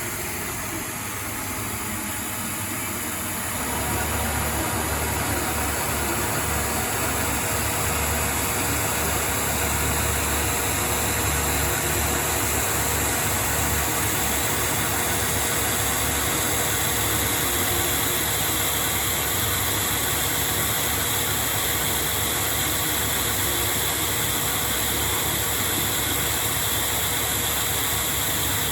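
ProtoTRAK CNC lathe running a rough-turning pass on a 4140 heat-treated steel shaft: a steady machine hum and cutting noise that grows louder about four seconds in.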